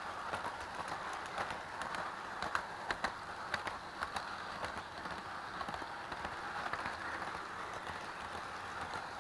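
Toy electric train running along its track, heard up close from one of its own cars: a steady whir of the motor and wheels with scattered sharp clicks from the wheels and rail joints.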